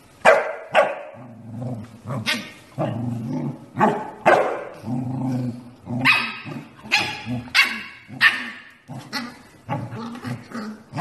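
Corgi puppy barking over and over: about a dozen short, sharp yapping barks at an uneven pace.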